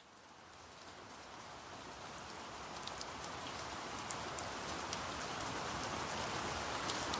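Recorded rain falling, an even hiss with scattered drop ticks, fading in from silence and growing steadily louder: a rain sound effect opening the next track.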